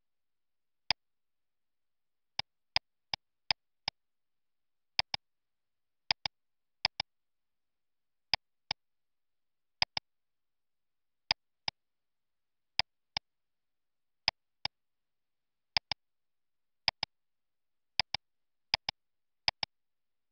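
Computer mouse button clicks, single and in quick pairs like double-clicks, at uneven gaps over silence as the mouse works menus and dialogs.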